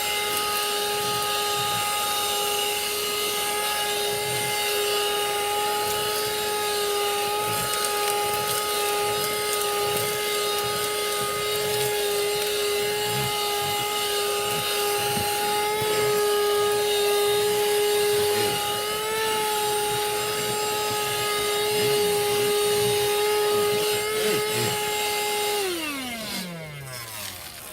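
Bergmann handheld car vacuum cleaner running with a steady high whine, with scraping and rattling as the nozzle works over the car floor and sucks up grit and small stones. Near the end it is switched off and the whine falls away as the motor spins down.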